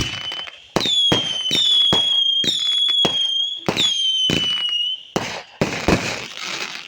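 Whistling fireworks firing in quick succession: about half a dozen pops, each followed by a shrill whistle that dips slightly in pitch and holds, several overlapping. A burst of crackling follows near the end and fades.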